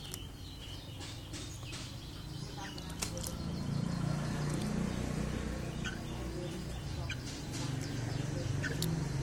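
A caged laughingthrush bathing: scattered splashes and wing flutters with a few short chirps. A low background rumble grows louder about a third of the way in.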